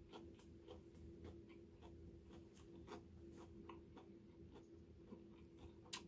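Faint chewing of a raw butterbur-leaf wrap: soft, irregular crunching clicks, a few a second, over a low steady hum.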